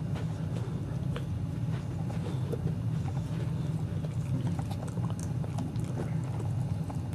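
Adult boxer dog gnawing a chew stick close up, with irregular clicks and crunches of teeth over a steady low rumble.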